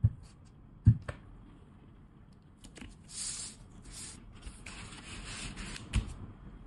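Art supplies being set out on a cloth-covered table: a soft thump at the start and another about a second in as a ceramic mug of brushes and other items are put down, then rubbing and sliding as strips of plastic paint pots and a sheet of paper are pushed across the tablecloth, ending with a third thump about six seconds in.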